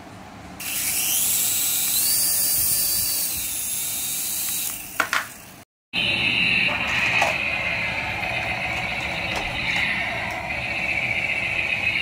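A small toy RC helicopter's electric rotor motor whirring while the helicopter is held in the hand, cut off suddenly about five and a half seconds in. A toy RC tank's electric drive motors and gears then whine steadily as the tank drives along.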